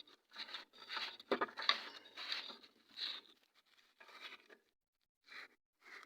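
Faint, irregular clicks and scrapes of a spanner tightening a nut on a car's exhaust pipe joint, with a couple of sharper knocks, thinning out after about three seconds.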